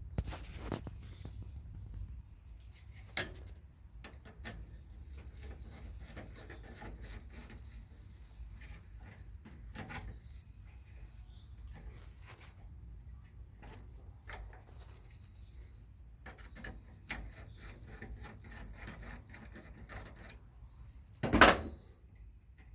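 Small scattered metal clicks and scrapes from hand work on a 1968 Camaro steering column's internal parts, as the small screw holding the linker arm is undone. One louder knock near the end.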